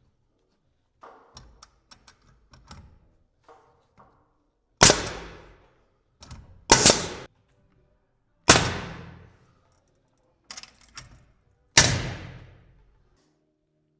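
Pneumatic framing nailer firing four nails into wood framing, each a sharp bang that rings off in the room, with light knocks and clicks of lumber being handled between the shots.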